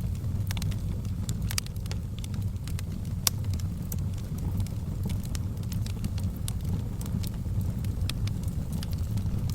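Fire in a fireplace crackling: frequent sharp pops and snaps over a steady low rumble of burning, with one louder pop about three seconds in.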